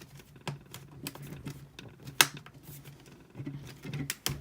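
Scattered sharp clicks and light taps of a plastic laptop being handled, with the loudest click about two seconds in.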